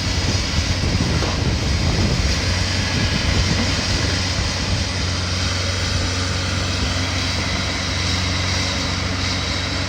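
A large engine running steadily: a constant low hum under a wide rushing noise, a little busier in the first few seconds.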